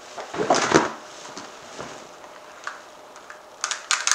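A person in a costume jumping up onto couch cushions: a burst of thumps and fabric rustle about half a second in, then a quick run of sharp clicks and clacks near the end as the costume's props rattle.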